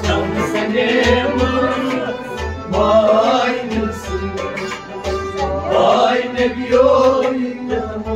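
Sufi devotional singing with instrumental accompaniment, the melody carried by voice over a deep drum beat that falls a little more than once a second.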